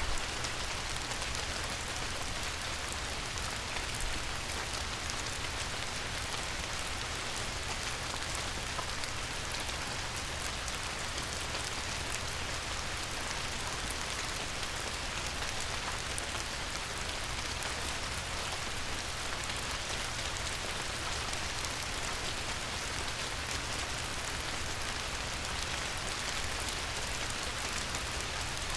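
Light rain falling steadily on a river, a dense even hiss of many small drops.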